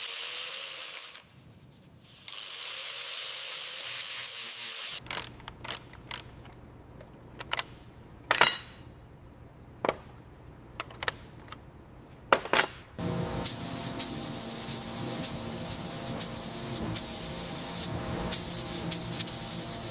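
Workshop tool sounds during reassembly work: scattered sharp clicks and knocks and a short hiss like a spray burst, then a steady hum of a power tool running for the last several seconds.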